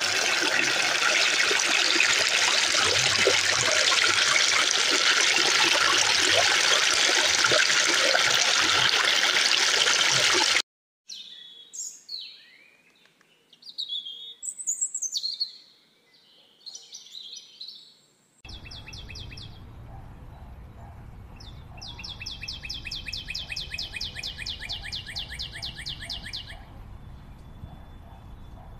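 Flowing stream water, a loud steady rush that cuts off suddenly about ten seconds in. Then scattered birdsong with rising and falling notes, followed by a rapid, regular high trill over a low rumble.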